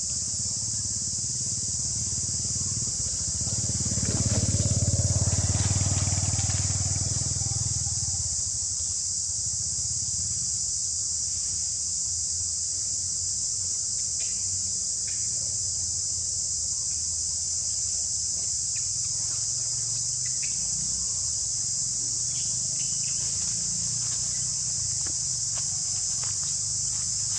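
Steady, shrill chorus of insects, with a low rumble that swells and fades from about four to eight seconds in, and a few faint clicks.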